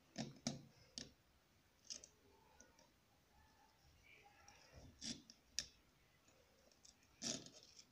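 Scattered small metal clicks of circlip pliers and a steel circlip being worked onto a motorcycle kick shaft: a few close together in the first second, a couple around five seconds in, and one more near the end.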